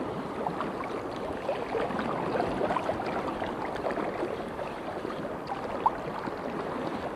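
Estuary water lapping and gurgling close by in a steady wash of many small burbles and splashes, with one sharper plop about six seconds in.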